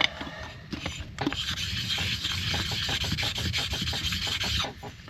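An outboard reed-plate part is rubbed back and forth on an oiled sharpening stone. It makes a steady scrubbing rasp of quick, even strokes that builds after about a second and a half and stops shortly before the end. This is lapping: it takes off leftover gasket material and flattens the mating surface.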